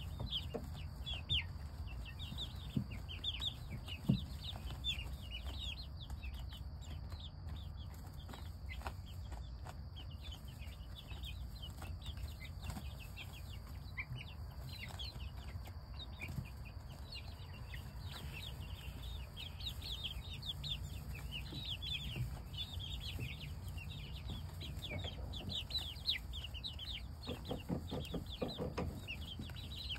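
A flock of young chickens peeping and cheeping, many short high calls overlapping, thinning out in the middle and crowding together again near the end. Scattered soft clicks and rustles of pecking in hay bedding, over a low steady hum.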